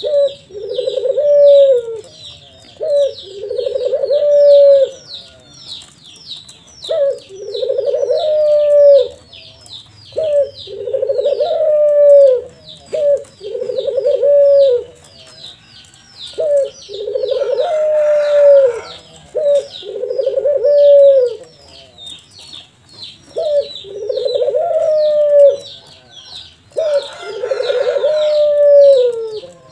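Ringed turtle dove (Barbary dove) cooing over and over: two-part coos, a short note then a longer one, every two to three seconds. A fast, high chirping runs behind the coos.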